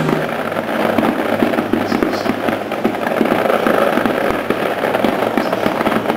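Fireworks display going off: a dense, continuous run of sharp pops and bangs from many shells and crackling effects bursting one after another.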